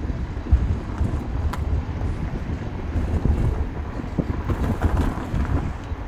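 Road and engine rumble of a moving car, heard from inside the cabin, with wind buffeting the microphone in uneven gusts.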